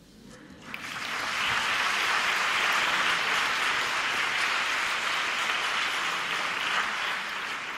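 Theatre audience applauding. The clapping swells in about a second in, holds steady, and tapers off near the end.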